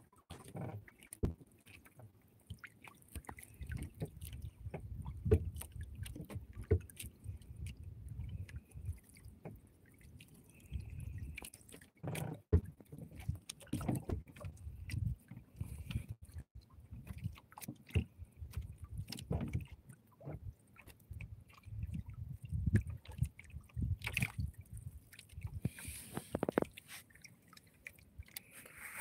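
Water sloshing in a low, uneven rumble, with many irregular knocks and clicks throughout.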